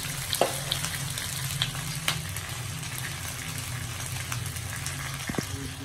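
Round cakes frying in oil in a nonstick pan: a steady sizzle, with a few sharp clicks of metal tongs on the pan.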